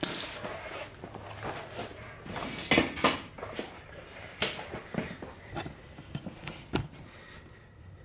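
Scattered metal clinks and knocks of foundry tools, steel tongs and a hot crucible, being handled and set down on fire brick, with the sharpest knocks about three seconds in and again near seven seconds, then dying away.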